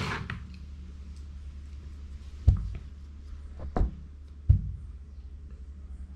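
Three sharp knocks from a hard tool being handled while measuring the gap under the adjustable scope ring, over a steady low hum.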